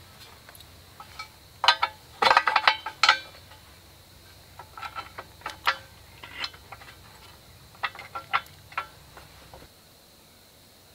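Metal hammock-mount arm and tyre-stand bracket clanking and clicking as they are handled and fitted together by hand. A cluster of sharp clanks with a brief metallic ring comes about two to three seconds in, followed by lighter, scattered clicks and knocks.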